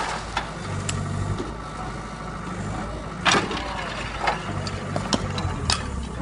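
Wheeled hydraulic excavator's diesel engine running steadily while its grab breaks into a tiled barn roof, with several sharp cracks and clatters of breaking roof tiles, the loudest about three seconds in.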